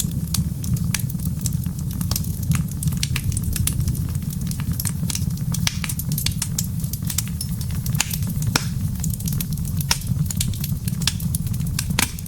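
Wood fire crackling, with frequent sharp irregular pops over a steady low rumble of soft wind.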